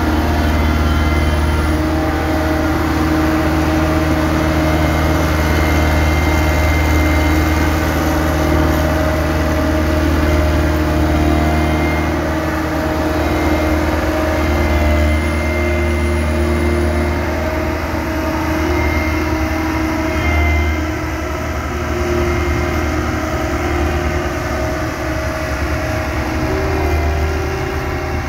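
Diesel engines of a crawler excavator and a single-drum roller compactor running together: a loud, steady low drone whose pitch shifts now and then and dips briefly about two-thirds through.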